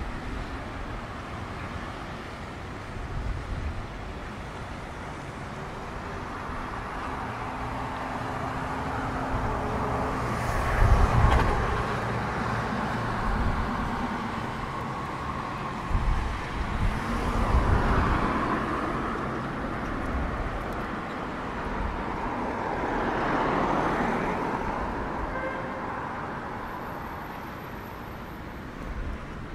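City street traffic: cars passing one after another, three of them swelling up and fading away in turn over a steady background hum of the road.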